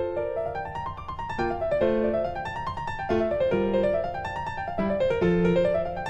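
Background piano music: rising broken-chord runs that repeat about every second and a half over low held bass notes.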